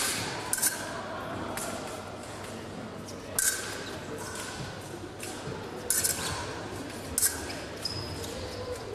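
Épée blades striking each other during a bout: sharp metallic clinks, each with a brief ring, coming singly or in quick pairs every second or few.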